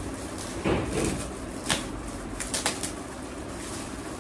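Shiny foil and cellophane gift wrap being torn open and handled: a steady crinkling rustle broken by sharp crackles, the loudest about a second in and again near the two-second mark.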